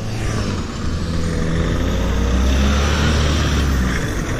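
Motorcycle engine running steadily at low revs while rolling slowly, a little louder midway through.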